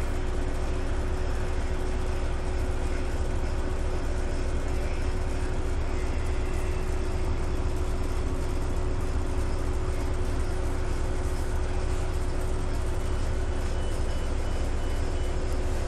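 Steady low rumble of a city transit bus heard from inside the passenger cabin, with a constant whine running under it.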